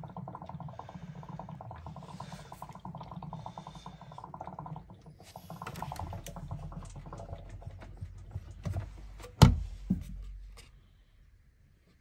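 Water glugging out of a Beko washing machine's small drain pipe as the machine is drained, a fast fluttering gurgle that breaks briefly about five seconds in. A loud knock comes about nine seconds in, and the flow dies away shortly after.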